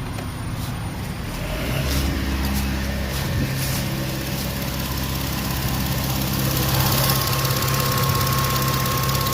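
Ford Mustang engine running at idle, its low steady hum growing fuller about two seconds in, during a no-start diagnosis.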